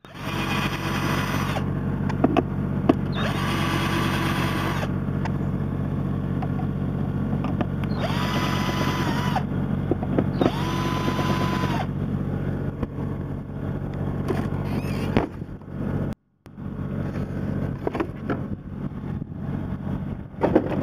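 Cordless drill-driver run in four short bursts, each spinning up to a steady whine and winding down, working the screws of a Losi 5ive T's aluminium chassis plate. A steady low hum runs underneath.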